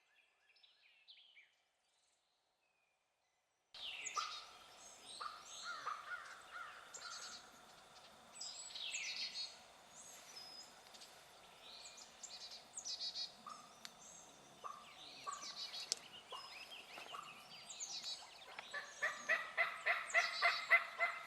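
Woodland birds chirping and calling. Near the end a wild turkey gobbles, a loud, rapid rattling run of notes, after a few seconds of silence at the start.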